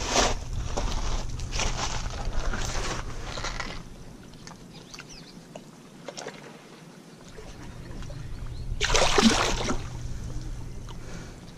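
Wind rumbling on the microphone, with several bursts of rushing noise. The loudest burst comes about nine seconds in.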